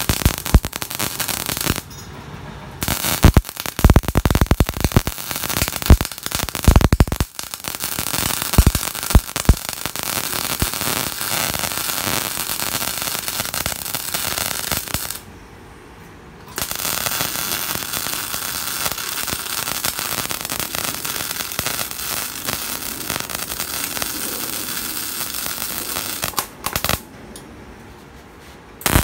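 MIG welding arc from a Fuji 270A MIG welder laying a bead on thick steel plate at about 150–160 A: a steady crackling hiss with loud irregular pops in the first several seconds. It stops briefly twice and ends shortly before the end. The even, crisp crackle is what the welder takes as the sign that voltage and wire feed suit the current.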